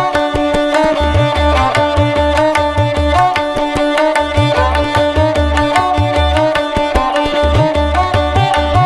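Instrumental background music in an Indian classical style: a plucked string melody over a steady drone, with a repeating low drum beat.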